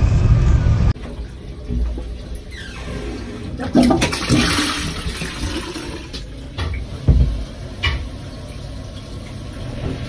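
A toilet flushing: water gushes and swirls down the bowl, swelling to its loudest a few seconds in and then trailing off with gurgles. Before it, a loud low rumble cuts off sharply about a second in.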